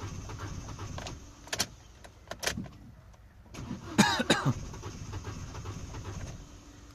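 Opel car engine cranking on its starter motor without firing, a steady low rhythmic churning that stops about a second in and resumes from about halfway, with a few sharp clicks in between: a crank-no-start fault.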